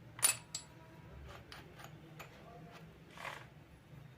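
Light metal clicks and ticks from handling a 10 mm drill bit in the keyed chuck of a Bosch GSB 500RE drill: one sharp click just after the start, then a few lighter ones, with a brief rustle about three seconds in.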